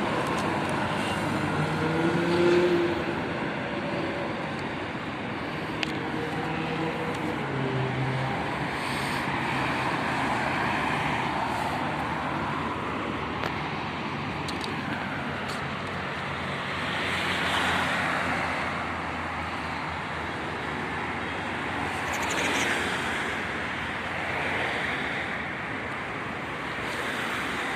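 Road traffic: a steady rumble of passing cars, swelling twice as vehicles go by more closely in the second half.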